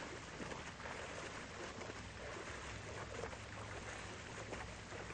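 Faint pool water sloshing and splashing as a swimmer bobs up and down in the water, over a steady low hum.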